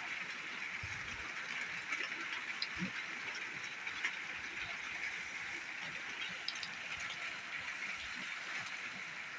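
Steady hiss of monsoon rain falling, with a few faint scattered drop ticks.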